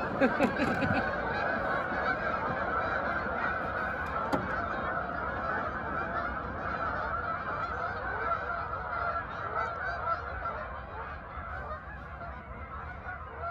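A large flock of geese honking continuously in a dense, overlapping chorus, with a few louder, closer honks in the first second.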